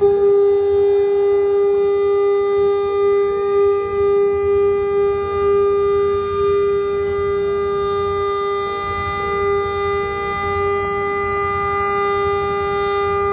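Ship's horn sounding one long, steady, unbroken blast, the signal of a sailing ship getting under way from the pier.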